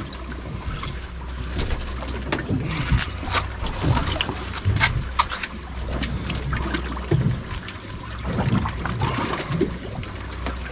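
Water lapping and sloshing against a boat's hull at sea, over a low steady rumble, with many small scattered clicks and knocks.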